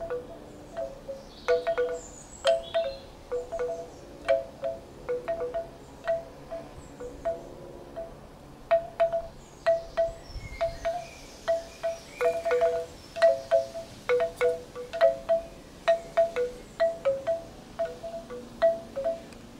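Large bamboo wind chime with six cut, lacquered bamboo tubes, knocked together and against its wooden striker by the breeze. Irregular clusters of hollow wooden clonks, each ringing at the same two pitches, with a brief wind rumble on the microphone about ten seconds in.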